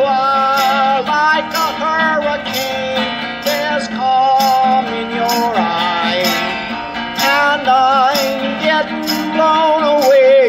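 Harmonica solo with a wavering, bending melody on a Hohner Marine Band harmonica in a neck rack, over steady strumming on a Cort baritone acoustic guitar tuned down a whole step.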